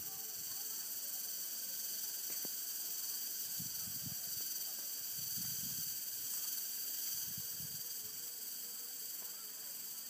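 A steady, high-pitched insect chorus hisses without a break.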